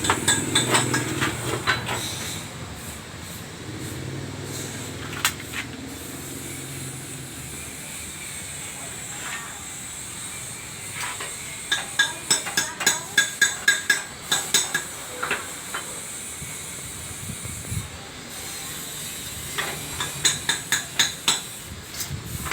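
Bursts of rapid metallic strikes, several a second, with a ringing note, over a steady hiss. The strikes come in three runs: at the start, in the middle and near the end.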